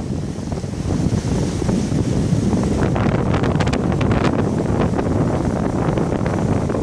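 Wind buffeting the microphone: a steady low rumble, with a short spell of crackles about three to four and a half seconds in.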